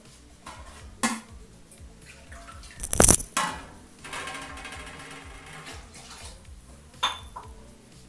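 Metal utensil knocking against a metal cooking pot of liquid masala: a few sharp clinks, the loudest cluster about three seconds in and another near the end, with a short swishing stretch in between.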